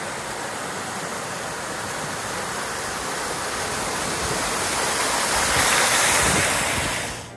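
Waterfall rushing, a steady hiss of falling water that grows louder towards the end and then cuts off suddenly.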